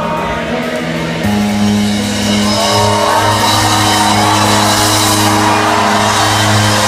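Live rock band playing, holding sustained chords. About a second in, a lower, louder chord comes in and is held.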